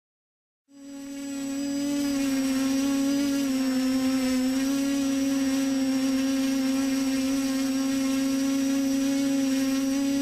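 TBS Discovery Pro quadcopter's brushless motors and propellers starting up under a second in and then running at a steady idle on the ground, a constant hum with a high whine over it.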